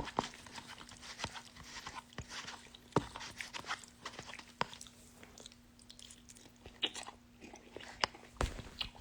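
A person eating instant ramen: quiet chewing with scattered small clicks and mouth noises, over a faint steady hum.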